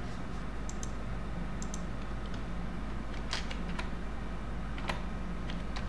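Computer keyboard being typed on: a handful of separate key clicks, slow and irregular, over a steady low hum.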